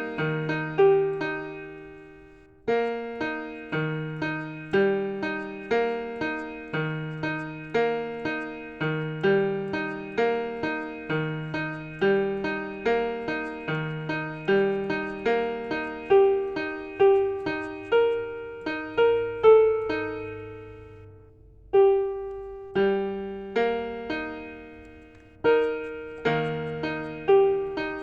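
Piano music: a slow melody of single struck notes over a repeating low accompaniment, each note ringing and fading, with the music thinning to a fading note three times before picking up again.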